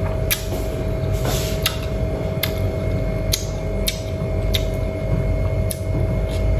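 Steady low mechanical rumble with a constant hum, broken by a dozen or so sharp clicks at irregular moments.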